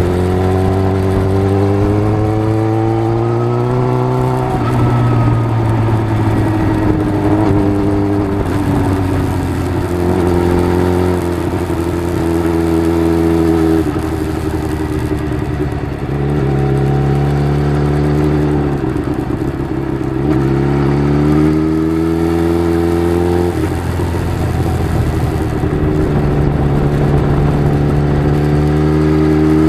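Suzuki GSX-R750 inline-four motorcycle engine revving up and down, its pitch rising and falling through the manoeuvres, with several sudden pitch steps from gear changes or throttle blips.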